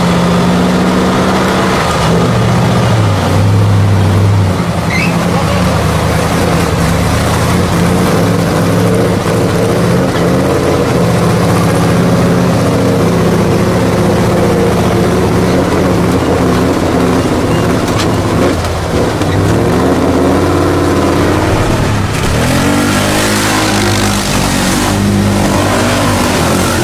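Off-road race trucks' engines revving hard under load, the pitch rising and falling as they work up a steep gully. In the last few seconds, a quad bike's engine revs higher and rises in pitch as it pushes through mud.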